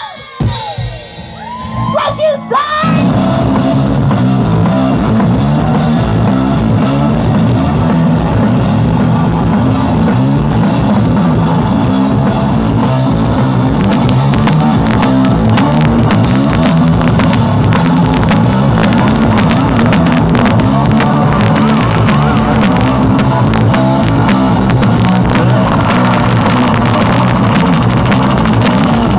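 A few yells, then a punk blues rock band of electric guitar and drums kicks in suddenly about three seconds in and plays on loudly, with a driving rhythm.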